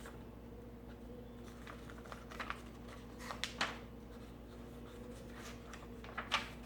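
Light paper rustles and a few soft taps from a picture book's pages being handled, over a steady electrical hum.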